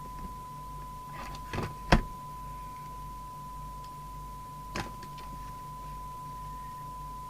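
Steady 1 kHz test tone from the CB radio's speaker: the signal generator's modulated test signal being received, over a low mains hum. A few sharp clicks come through it, the loudest about two seconds in.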